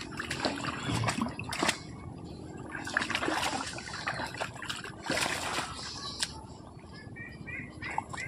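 Pond water splashing and trickling, with irregular short splashes.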